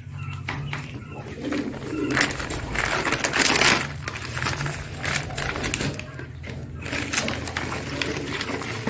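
Pigeons cooing, with a loud rustling, pouring noise about two to four seconds in, as a bag of mineral salts is handled over the feed mix.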